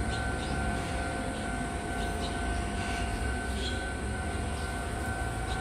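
Level-crossing warning signal sounding a steady two-pitch tone, over a low steady rumble.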